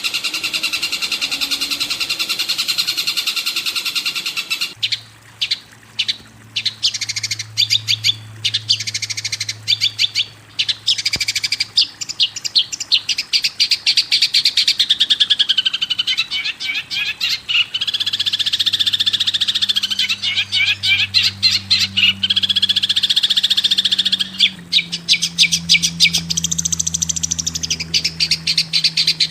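Songbird song in rapid runs of short chirps and trills. The song changes character about five seconds in, from a dense continuous warble to choppier bursts of notes.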